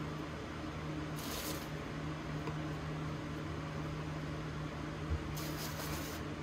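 Steady low hum of an appliance in the room, with two brief rustles of cookies being handled, about a second in and near the end.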